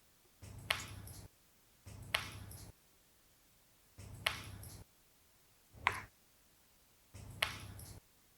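Spring-loaded chiropractic adjusting instrument firing against the spine: five sharp clicks, one every one and a half to two seconds.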